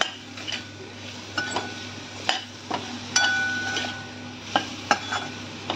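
A steel spoon stirring spiced raw mango pieces in a stainless-steel kadhai: irregular scrapes and clinks of metal on the pan, a few ringing briefly, over a faint sizzle of the pieces frying in oil.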